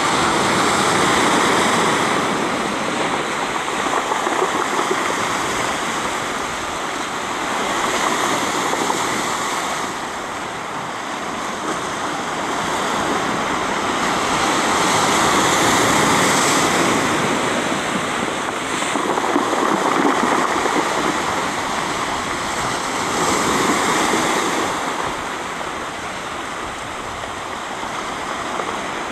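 Sea surf washing in over a pebble beach, a steady rush of water that swells and eases in slow surges.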